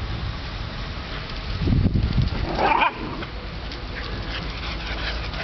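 A dog barks once, short and sharp, about two and a half seconds in, while two dogs play-chase each other. A low rumble comes just before the bark.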